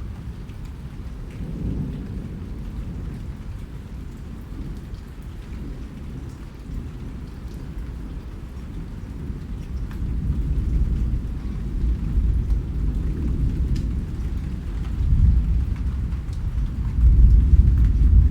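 Rain falling steadily with a low rumble of thunder that builds through the second half and swells loudest near the end.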